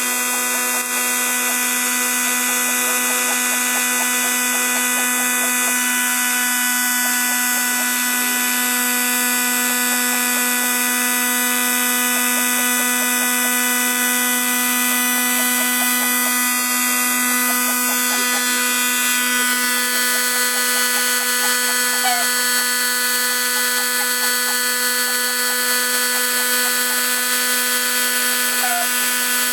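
Electric construction heat gun running steadily with a constant motor whine, blowing hot air into a small kindling fire to get it burning.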